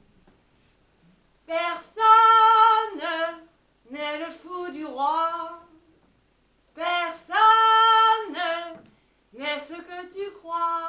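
A woman singing unaccompanied in four short phrases, with long held notes and sliding pitch between them, and silence in the gaps.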